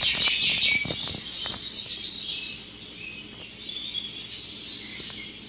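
High-pitched chirping, like a group of small birds calling rapidly, with a few faint clicks. It drops in level about two and a half seconds in.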